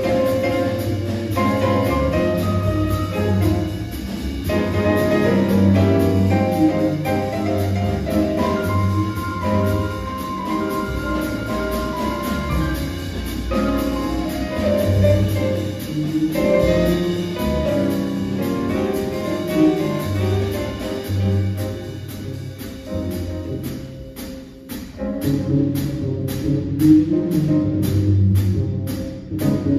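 Live jazz from a grand piano, double bass and drum kit, with a busy line of piano notes over bass and drums. About 24 seconds in the piano thins out, and a steady cymbal beat of about three strokes a second stands out.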